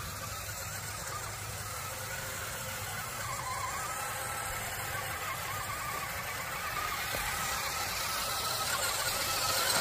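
Electric drive motor and gears of a vintage Radio Shack 4x4 Off Roader toy RC truck whirring steadily as it drives in high gear, growing a little louder toward the end.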